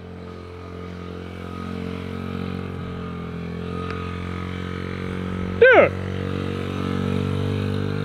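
Small mini-bike engine running steadily as it circles, with one brief, loud, sharply falling squeal about two-thirds of the way through.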